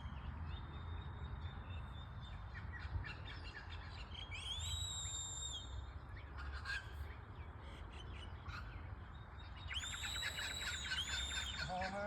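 Shepherd's whistle commands to working sheepdogs: a long high whistle that rises and then holds about four and a half seconds in, and a quick run of warbling, trilled whistles near the end.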